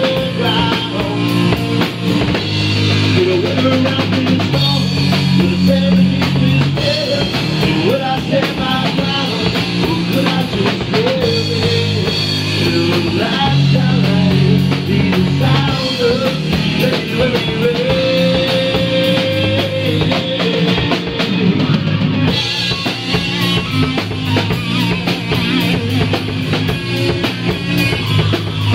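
Live rock band playing: drum kit, bass guitar and electric guitar under a male lead vocal.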